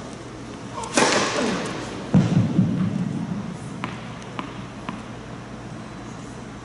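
A tennis racket strikes the ball on a serve with one sharp crack about a second in, echoing in a large indoor hall. About a second later comes a deeper, heavier thud, followed by three light ticks a little over half a second apart.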